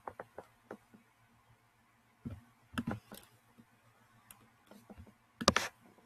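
Scattered clicks and taps on a Chromebook's keys and touchpad as a web page is scrolled, with a louder cluster of clicks near the end.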